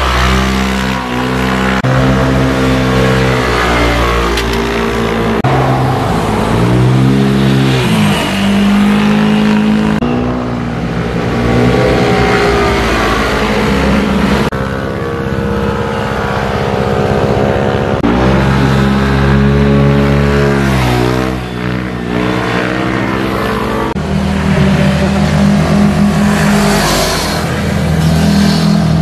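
Motorcycles and scooters passing one after another through a bend, their engines revving, the pitch sweeping up and then falling away as each goes by. Several separate passes follow each other with sudden changes between them.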